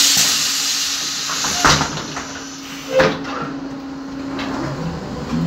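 Iveco Socimi 8820 trolleybus's pneumatic doors closing: a short loud hiss of air, then two knocks as the door leaves shut, over the bus's steady electrical hum.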